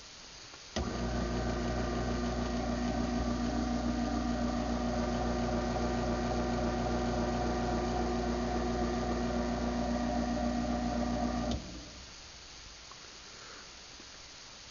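Craftsman ½ hp garage door opener worked from its keypad: a relay click about a second in, then the motor runs with a steady hum for about eleven seconds, opening the door, and stops with a click.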